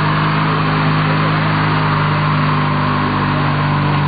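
Riding lawnmower engine running steadily under way across grass, with a steady high whine over the low engine note.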